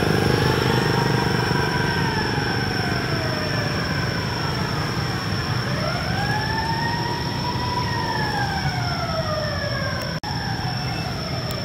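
A siren wailing, its pitch rising and falling slowly, about one rise and fall every five seconds, over a steady rumble of traffic and a thin, steady high tone. The sound cuts out for an instant about ten seconds in.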